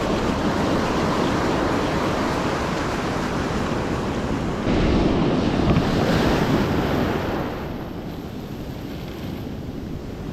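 Surf breaking and washing on a sandy beach, with wind buffeting the microphone. A louder surge starts about halfway through and eases off again near the end.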